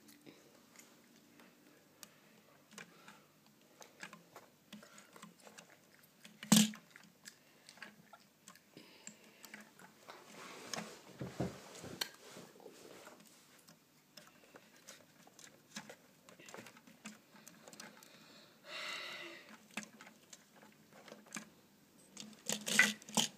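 Plastic Lego pieces being handled: scattered light clicks and rattles, with one sharp knock about six and a half seconds in, a short rustle later on, and a burst of clicks near the end.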